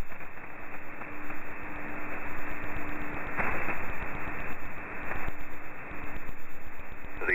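Shortwave receiver in upper-sideband mode on the E06 numbers station's frequency: steady band hiss with a low steady tone that comes and goes, and a brief rising chirp about halfway through.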